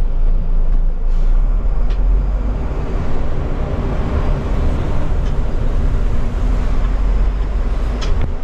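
Steady low rumble of running noise heard from the driver's cab of a KSRTC Olectra electric bus moving slowly, with a couple of faint clicks near the end.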